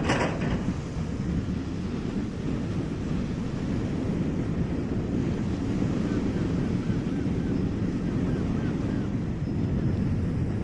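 Wind buffeting the microphone over the wash of small waves on the shore, a steady rough rumble, with a brief crackle right at the start.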